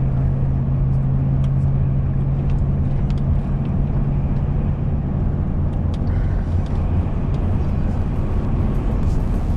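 Steady low drone of a motor vehicle driving, with a low hum that fades out about six seconds in.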